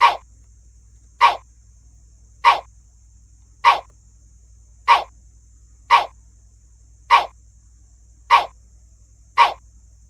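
A short dog-like bark repeated at a mechanically even pace, about once every 1.2 seconds, nine times, over a faint steady low hum.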